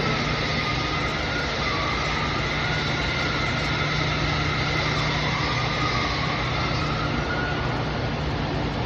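TIG welding arc running steadily, an even hiss and buzz over a low electrical hum, with a faint whine that slowly wavers up and down in pitch.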